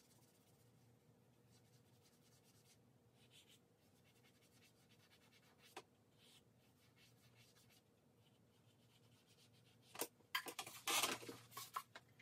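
Faint scratching and rubbing of charcoal on drawing paper. About ten seconds in, a short burst of clattering clicks and knocks, the loudest sound here.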